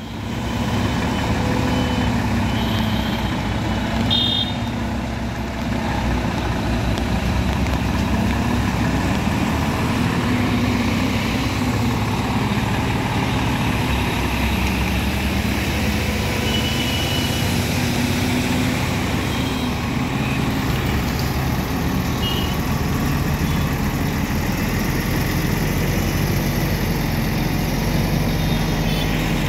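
Diesel engine of a Volvo heavy truck running steadily under load as it creeps forward, hauling an oversized pressure vessel on a multi-axle trailer.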